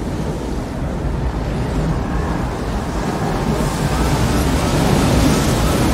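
Tornado wind in a film soundtrack: a dense, rushing low rumble that grows louder and brighter over the last couple of seconds as the funnel closes in.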